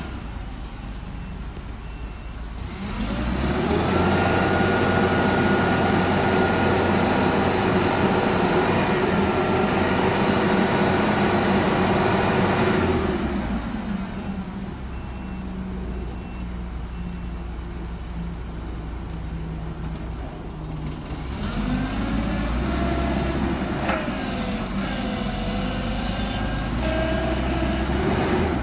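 Forklift's Nissan K25 four-cylinder engine idling, then revving up with a steady hydraulic whine for about ten seconds while the mast lifts the forks, then settling back to idle. Near the end the engine picks up again with wavering squeals.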